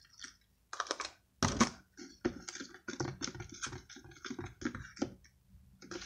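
A spoon stirring a watery slime mixture in a small plastic cup, clicking and scraping against the cup in quick repeated strokes, about three to four a second. The strokes begin about two seconds in, after a louder knock.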